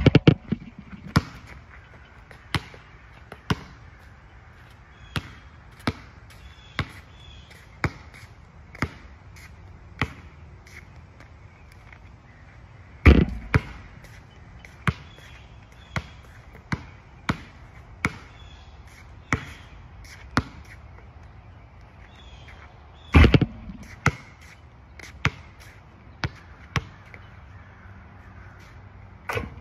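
Basketball bouncing on an outdoor asphalt court: sharp bounces about once a second, with two much louder, heavier hits about 13 and 23 seconds in.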